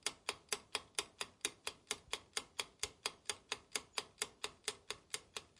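Ticking-clock sound effect: quick, even ticks, about four or five a second, with silence between them.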